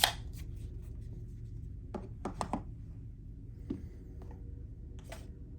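Folding knives being handled and set down on a hard surface: a sharp click at the start, a quick cluster of clicks and taps about two seconds in, and single taps later, over a low steady hum.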